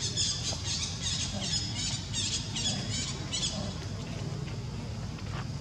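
Macaque giving a rapid run of short, high-pitched squeals, several a second, that stops about three and a half seconds in, over a low steady rumble.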